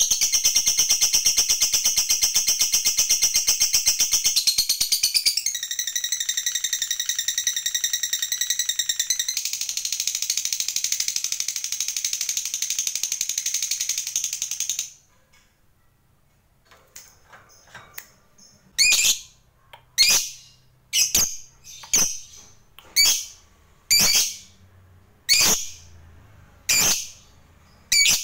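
Lovebird giving its long chattering trill, the 'ngekek panjang', a very fast, high rattle held for about fifteen seconds that cuts off abruptly. After a short pause it gives sharp single chirps about once a second.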